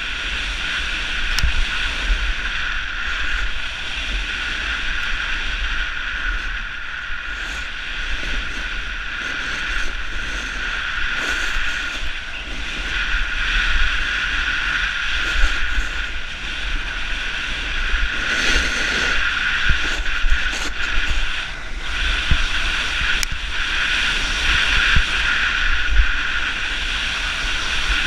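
Steady rushing noise of a snowboard run: wind buffeting a GoPro's microphone while the board slides and scrapes over packed snow.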